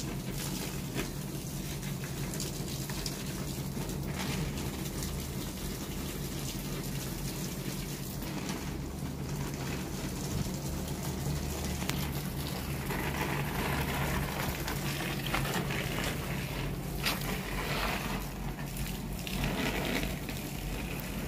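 Garden hose spraying water onto potted plants: a steady splash and hiss of the stream falling on leaves and soil.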